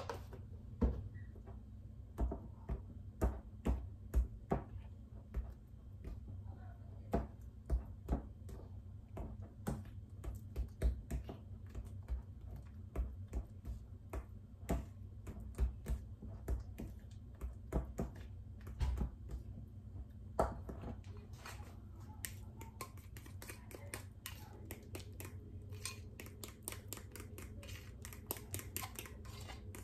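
Metal utensil clicking and tapping against a glass bowl while stirring white frosting, the clicks coming faster and closer together in the last several seconds.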